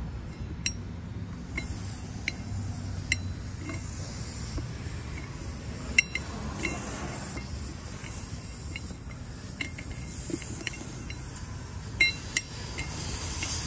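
Light metallic clicks and clinks at irregular intervals, the sharpest about halfway through and a cluster near the end, as a valve-core tool works in the valve stem on a minibike wheel's steel rim to let the air out of the tire. A faint steady hiss runs underneath.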